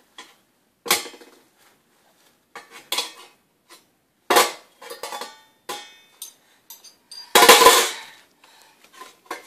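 A baby banging and clanking spoons together, irregular sharp clinks with brief metallic ringing, drum-like. The loudest, longest burst comes about seven and a half seconds in.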